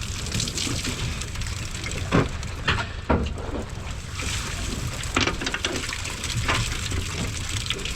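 Small boat's motor running with wind on the microphone, and about five sharp knocks on the boat at uneven intervals.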